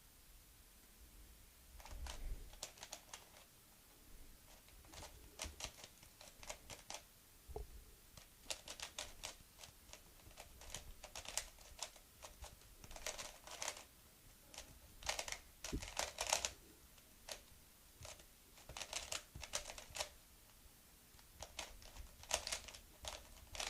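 MoYu Weilong V2 3x3 speedcube being turned fast in a solve, its plastic layers clicking in rapid runs broken by short pauses. The cube is running dry and on very tight tensions.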